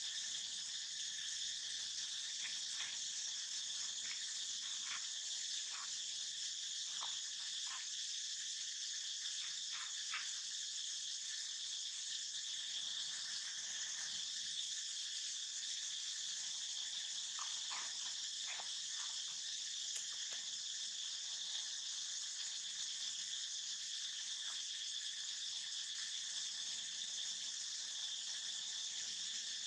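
Steady high-pitched insect chorus droning without a break, with a few short high chirps scattered through the first third and again a little past the middle.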